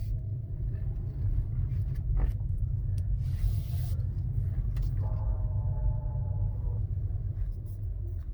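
2019 Tesla Model 3 Performance rolling with a low rumble. About five seconds in, a groaning tone with several pitches comes from the driver-side front wheel hub as the steering is turned near full lock to the right and lasts almost two seconds. It is the sign of a faulty front wheel hub, which was cured by replacing it.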